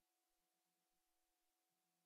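Near silence: a silent film with no soundtrack, only faint residual hiss and hum far below hearing.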